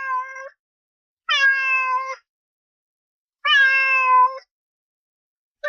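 A cat meowing: a string of long meows of steady pitch, each about a second long and about two seconds apart.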